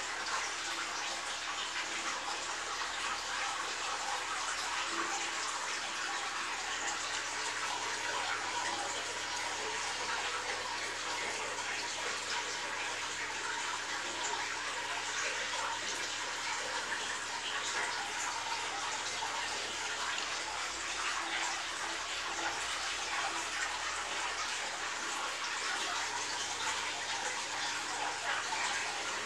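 Aquarium water circulating: a steady hiss of splashing, bubbling water, with a faint steady low hum underneath.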